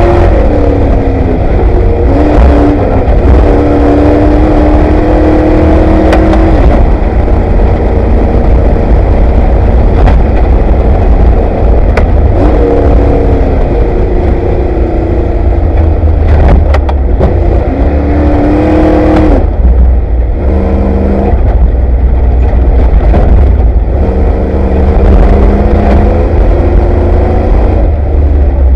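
Off-road race vehicle's engine heard from inside the vehicle, loud and under hard load, its pitch climbing and dropping repeatedly with gear changes and throttle over a heavy low rumble and rattle of the chassis on rough ground. A few sharp knocks come around the middle.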